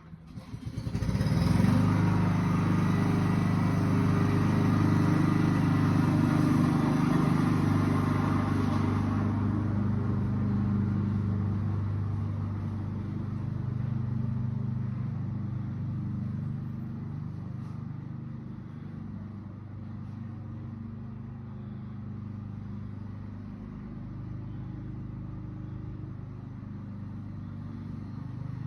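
Lawnmower engine starting up about a second in and running steadily, then growing fainter after about ten seconds.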